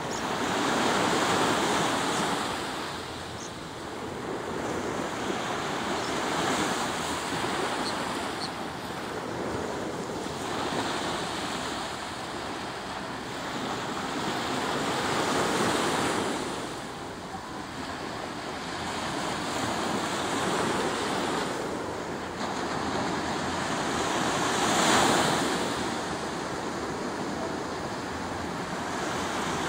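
Surf breaking on a beach, a wash of noise that swells and fades about every four to five seconds, with wind on the microphone.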